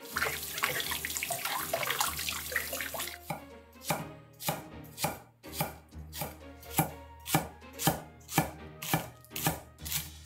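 Chef's knife slicing a green onion on a wooden cutting board, even cuts about two a second from about four seconds in. Before that, a dense hiss lasting about three seconds.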